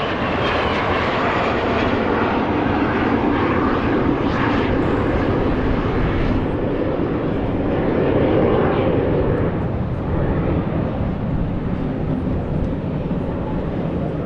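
An airplane's engine noise as it flies overhead: a steady, loud, noisy rumble that swells slightly around eight seconds in, with the higher part of the sound fading after about six seconds.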